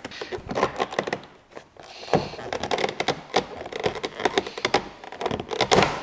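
Irregular plastic clicks, taps and scrapes as a trim tool pries the interior door handle trim out of an Acura NSX door panel, with a louder run of clicks near the end.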